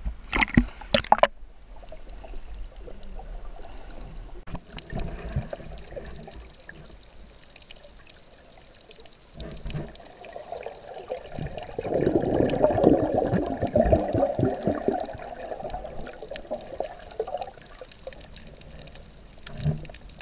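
Water splashing as an action camera dips beneath the surface, then muffled underwater sloshing and bubbling, with a louder stretch of bubbling about twelve seconds in.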